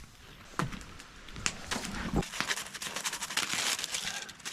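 Food sizzling and crackling over a campfire, with many small sharp clicks and pops and two dull knocks, about half a second and two seconds in, as the food is handled.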